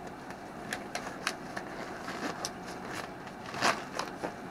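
Blue nitrile gloves being pulled onto the hands: irregular crackling and light snaps of the thin rubber, the loudest snap a little before the end.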